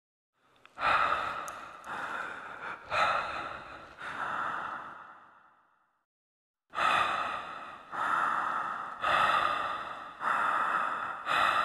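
A series of breathy exhales, each starting sharply and fading slowly, about one a second: four, a short pause, then five more.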